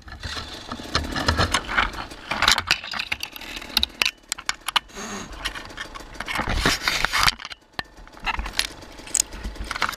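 Thorny branches and twigs scraping, rustling and snapping against the helmet camera and the dirt bike as they are pulled away, an irregular run of crackles and scrapes.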